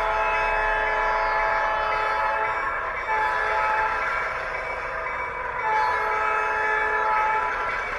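Sampled diesel locomotive air horn from the ESU LokSound sound decoder in an HO scale Athearn Genesis MP15AC, played through the model's small speaker: a chord sounded in long blasts, with short breaks about three seconds in and again near six seconds.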